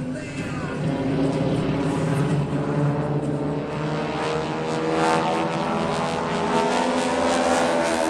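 Radial engines of a formation of North American T-6 Texan aerobatic planes droning overhead, the engine note rising in pitch about halfway through.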